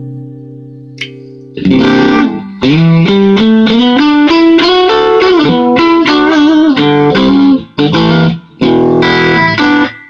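Electric guitar, a custom-built Telecaster with humbucker-single-humbucker pickups, played amplified: a held chord dies away, then a fast picked lead run with a few string bends, broken by two short pauses near the end.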